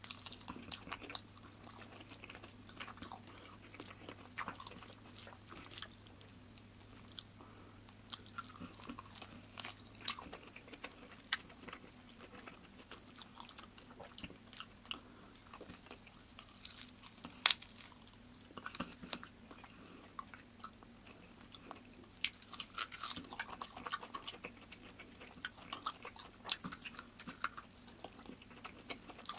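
Close-miked chewing and crunching of a hand-eaten rice and mutton curry meal with crispy fried topping: irregular crunches and sharp mouth clicks, one especially loud click about midway.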